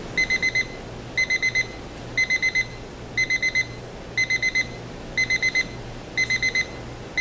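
Equity 20080 quartz fold-up travel alarm clock's beep alarm going off: high electronic beeps in quick groups of four, one group each second.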